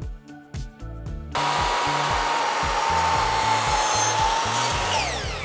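Sliding compound miter saw switched on about a second and a half in, its motor running at full speed with a steady whine while the blade crosscuts a board; near the end the trigger is released and the blade winds down with a falling whine. Background music with a steady beat underneath.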